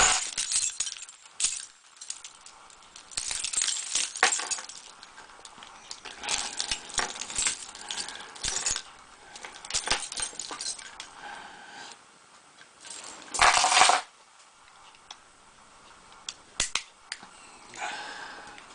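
Lock pick working the pins of an American Series 3700 padlock during single-pin picking: scraping and clicking in the keyway in irregular bursts, with a louder burst of scraping about thirteen seconds in.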